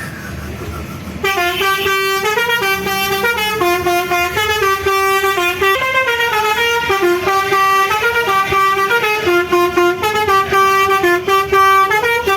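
Low vehicle rumble, then about a second in a multi-tone 'telolet' musical horn starts playing a melody and keeps going, its pitch stepping up and down between several notes in a repeating pattern.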